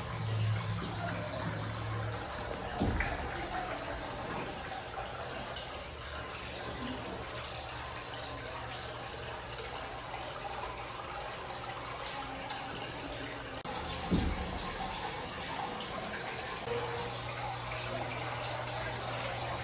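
Water trickling and splashing steadily from a rock waterfall into an indoor goldfish pond. Twice a brief thump cuts in over it.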